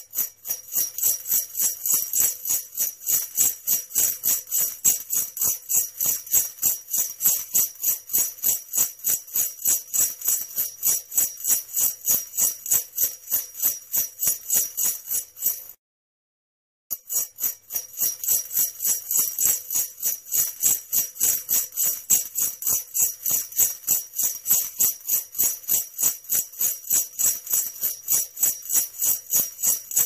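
Sleigh bells shaken in a steady rhythm of about three jingles a second, like a sleigh on the move. The jingling stops dead for about a second about 16 s in, then starts again at the same pace.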